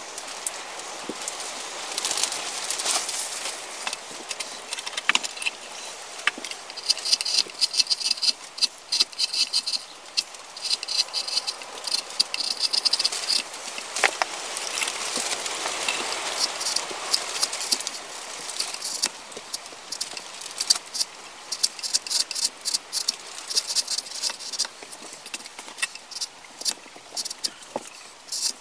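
Hand-pushed carving gouge cutting into a wooden cup blank clamped in a vise: runs of short, crisp scraping cuts as shavings come away, with quieter gaps between the runs.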